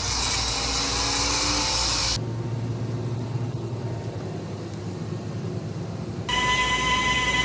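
Power tools cutting and shaping a wooden log, in short abrupt clips. First a loud hissy grinding noise, then about two seconds in a quieter low rumble, and about six seconds in a steady high whine.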